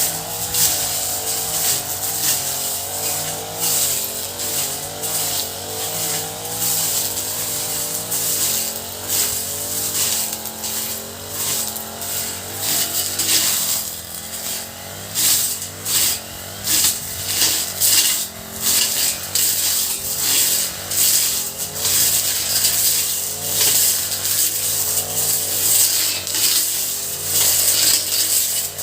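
Honda four-stroke grass cutter engine running, its pitch wavering up and down as the load changes, over a steady high hiss with frequent short crackles.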